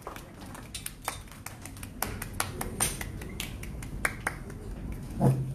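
Scattered, irregular hand claps from a small audience, a few sharp claps a second.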